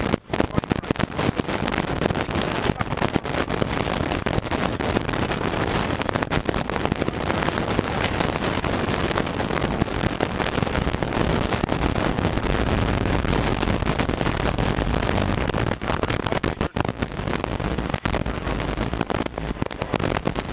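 Ford Escort RS1800's fuel-injected BDA four-cylinder engine running hard under load, heard from inside the cockpit and heavily distorted with crackle. The engine note dips briefly about seventeen seconds in.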